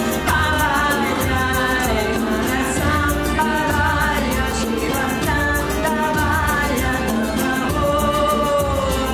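Devotional kirtan song: a woman sings the lead melody, accompanied by a strummed acoustic guitar. Egg shakers keep a steady, even rhythm.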